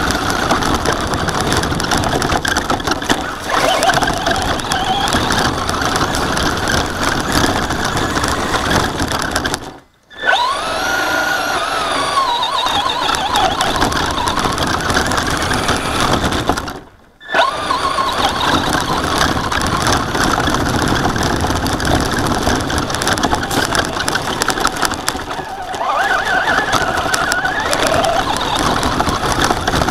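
Slash RC short-course truck driving over grass, heard from its onboard camera: a constant noisy rush of drivetrain and tyres, with a motor whine that rises and falls in pitch as the throttle changes. Twice, about ten and seventeen seconds in, the sound cuts out almost completely for under a second.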